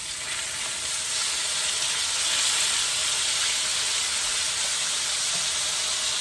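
Water added to potatoes frying in hot bacon fat, hissing and sizzling as it boils off into steam; the hiss swells about a second in and then holds steady.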